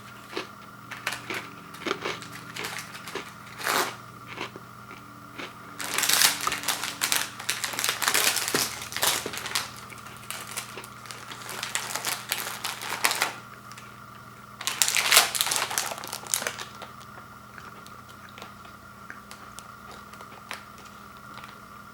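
Plastic cookie packaging crinkling as it is handled. Scattered clicks come first, then two long spells of dense crinkling in the middle, then a few light ticks.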